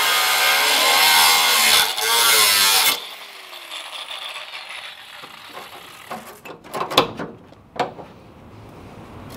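Angle grinder grinding into the steel quarter-panel seam, its pitch wavering under load, then switched off about three seconds in and winding down. Near the end come several sharp metal clinks and knocks as the panel edge is worked with a hand tool.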